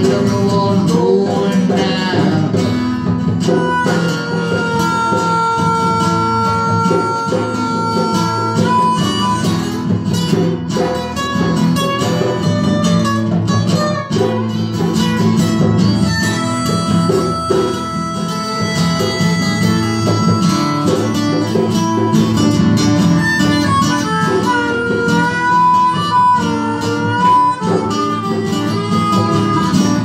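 Two acoustic guitars strumming chords while a harmonica played into a vocal microphone holds long notes over them.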